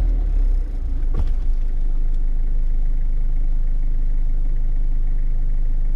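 Off-road 4x4's engine running with a steady low hum, with a single short knock about a second in.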